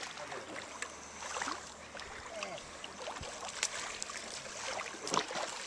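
Shallow river water splashing and sloshing as a person steps out of a canoe and wades through it, in several separate splashes, the loudest near the end.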